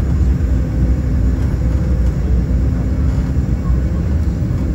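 Steady cabin noise inside an Embraer E195 jetliner in flight: a low roar of airflow and turbofan engines with a steady hum under it.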